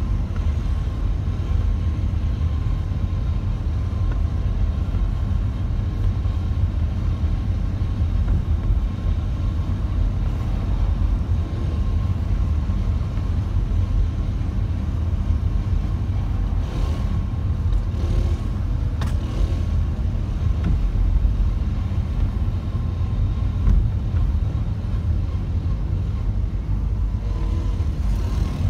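Steady low rumble of a car's engine and tyre noise, heard from inside the cabin while driving along a street.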